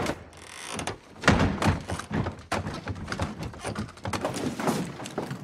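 A tall wooden dresser toppling over and landing with a heavy thud about a second in, followed by a run of irregular knocks and thumps.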